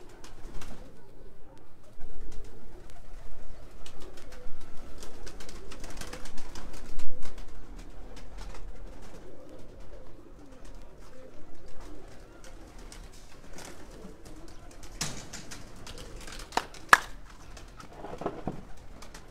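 Domestic pigeons cooing in a wavering, low murmur. Over it come rustling and sharp knocks from the phone being handled, loudest about seven seconds in, with a few louder rustles near the end.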